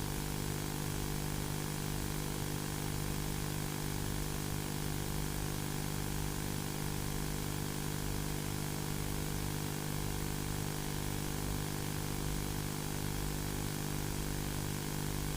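A steady droning hum with hiss behind it, unchanging in pitch and level.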